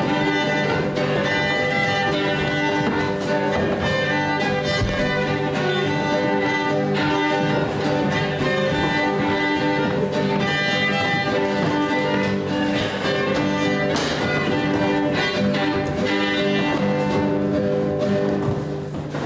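Instrumental music led by fiddle, over a steady low drone, fading out near the end.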